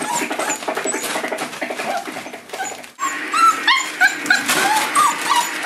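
Five-week-old Boerboel puppies whining and yipping while they play, a string of short high calls that comes thickest in the second half, with crinkling of the newspaper under their paws.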